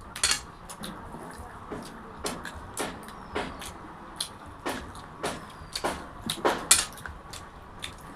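Eating sounds: a string of short, sharp clicks and smacks, about two a second, from chewing fried food and hands working food on a plate. The loudest come just after the start and near the end.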